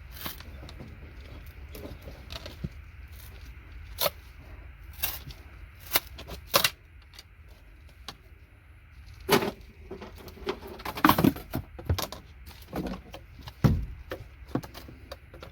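Irregular sharp clicks and knocks, a dozen or so at uneven spacing, of scrap circuit boards being worked by hand as components are broken and pried off them.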